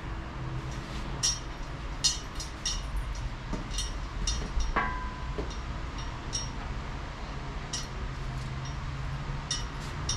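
Engine hoist being rolled with an engine and transmission hanging from its chain: irregular metallic clinks and rattles over a low rumble, with one louder ringing clank about five seconds in.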